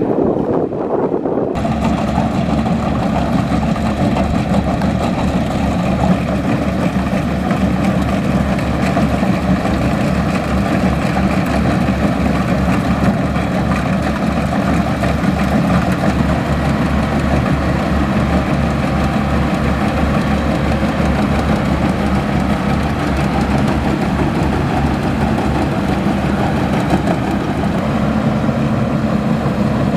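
Kubota DC-105X combine harvester's diesel engine running steadily, with a regular low throb, from about a second and a half in.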